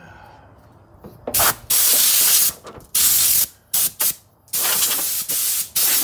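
Pressurised spray hissing in about seven short bursts, the longest nearly a second, beginning about a second in.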